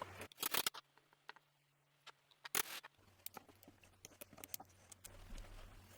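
Small hand-tool clicks and taps as screws are taken out and the casing of an electric screwdriver is worked open: a few quick clicks about half a second in, a sharper one about two and a half seconds in, then scattered faint ticks.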